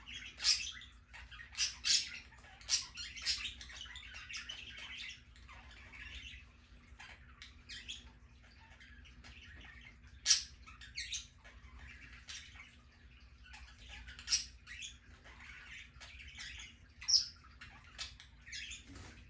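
Pet parakeets chirping in short, sharp calls, scattered irregularly with the loudest near the start and about 10, 14 and 17 seconds in, over a faint steady hum.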